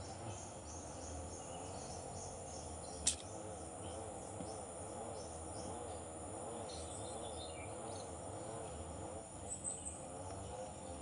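Insects chirping in a steady, rhythmic pulsing chorus, with a single sharp click about three seconds in.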